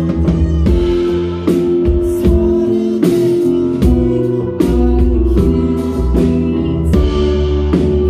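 Rock band playing live: drum kit, bass and keyboard with a woman singing, held chords over a steady beat.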